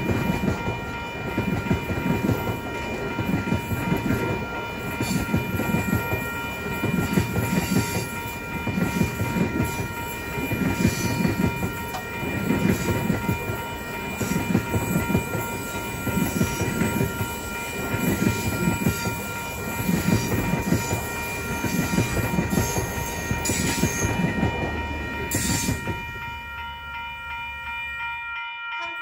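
A train passing close by, its wheels clattering over the rail joints in a steady rhythm about every two seconds, with a steady high whine throughout. The clatter stops about 26 seconds in.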